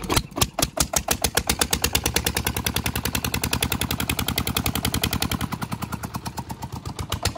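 A single-cylinder stationary diesel engine driving a belt-driven tube-well pump. Its exhaust beats come spaced and uneven in the first second as it picks up speed, then settle into a steady rapid beat.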